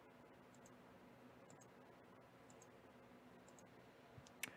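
Faint computer mouse clicks, about one a second, each a quick double tick of press and release, as an on-screen button is clicked over and over. A sharper click comes just before the end.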